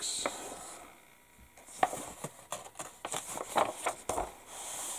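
Pages of a printed instruction booklet rustling and being turned by hand, with a few soft taps and brushes of fingers on the paper.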